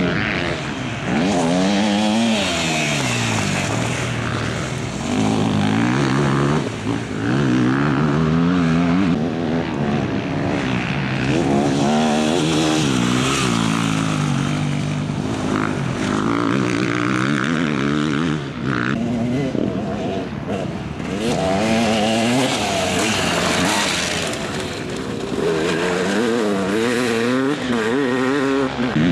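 Dirt bike engines revving up and down as riders go by on the track, one after another. The pitch climbs and drops over and over.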